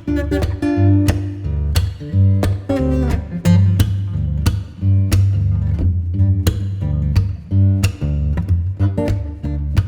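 Background music: a guitar-led track with plucked and strummed guitar over a steady bass.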